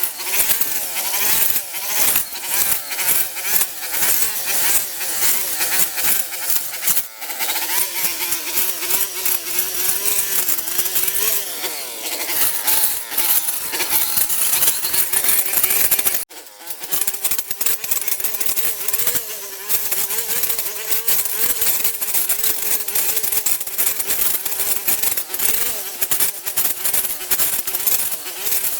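A small motor buzzing, its pitch wavering, over dense clicking and rattling. The sound drops out briefly about sixteen seconds in, then starts again.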